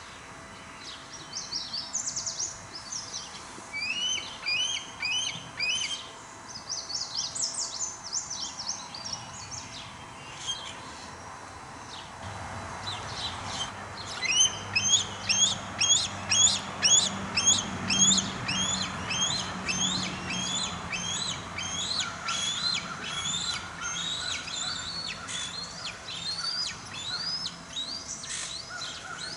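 Birds calling: repeated short, high, upswept notes in small clusters, then a faster, louder run of notes about halfway through.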